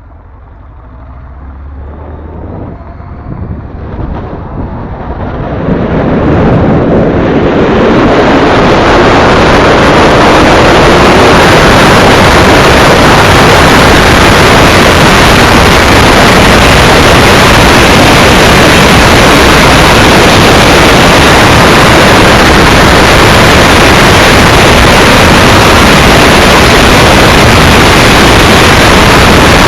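Headwind buffeting the microphone: the rush of wind rises over the first eight seconds, then holds as a loud, steady noise.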